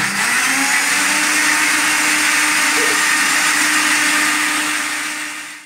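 Countertop jug blender blending milk, ice cream and cookies into a milkshake: the motor starts suddenly, its pitch rising as it comes up to speed, runs steadily, then cuts off just before the end.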